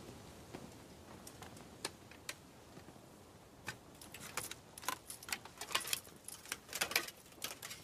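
Metal armour clinking and jangling in a quick scatter of small, bright clicks that grow busier from about halfway through, as a soldier in plate armour lifts off his plumed metal helmet.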